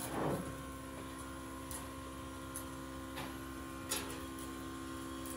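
Steady hum of running workshop machinery, several even tones held throughout. A few light clicks come through between about two and four seconds in.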